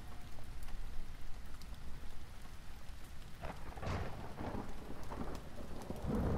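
Steady rain falling, with thunder rumbling in from about three and a half seconds in and growing louder near the end.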